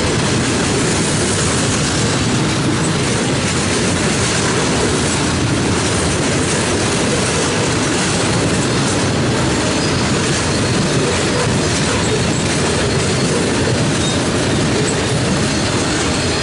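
Freight train's flatcars loaded with steel coils rolling past, their steel wheels running on the rails in a loud, steady rumble.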